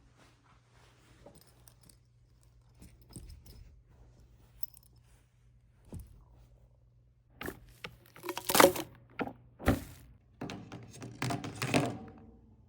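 Household objects being handled: faint scattered clicks, then in the second half a run of loud knocks and rustling, crinkly noise over a faint low hum.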